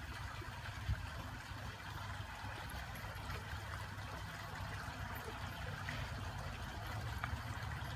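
Steady rushing background noise with a low hum, and a single click about a second in.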